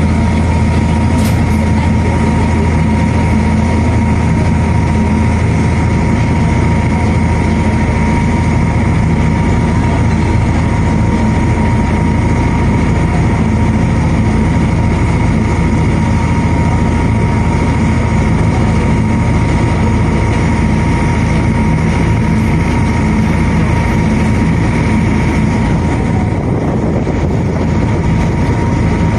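A passenger ferry boat's engine running steadily under way: a loud, even drone with a deep hum and a few steady tones above it.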